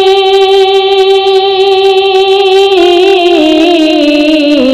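A man singing a Bhojpuri naat unaccompanied, holding one long high note for nearly three seconds, then stepping down in pitch through a few wavering notes.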